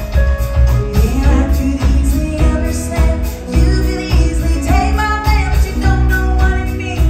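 Live country band playing with a woman singing lead: her voice over acoustic guitar, bass and a drum kit keeping a steady beat.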